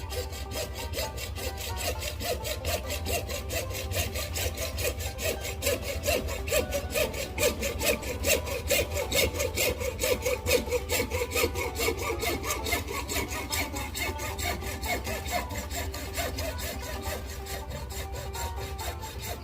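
A hand tool working wood with rapid, even scraping strokes that keep up throughout, over a steady low hum.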